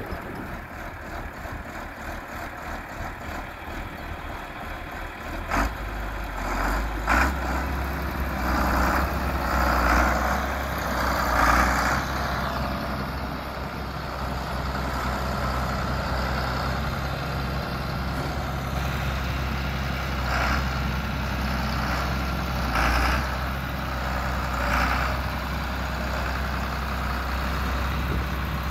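John Deere 4640 tractor's turbocharged six-cylinder diesel engine running, its steady low note firming up about six seconds in and holding as the tractor drives, with a few louder swells along the way.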